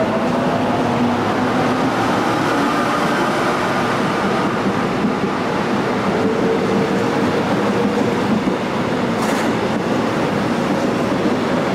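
Electric commuter train running past the platform close by, with the steady noise of its wheels on the rails and a motor hum whose tones slowly shift in pitch.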